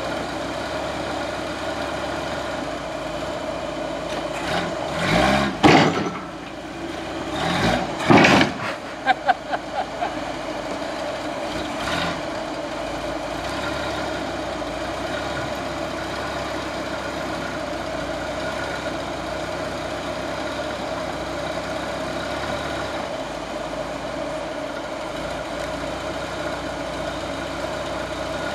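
RC car running on a teeter-totter obstacle, with a steady engine-like hum throughout. Two short throttle bursts rise in pitch about five and eight seconds in, followed by a quick run of knocks and a single knock a couple of seconds later.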